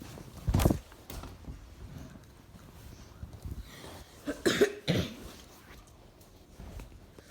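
Short cough-like bursts: one about half a second in, then a few harsh ones together around four and a half to five seconds in.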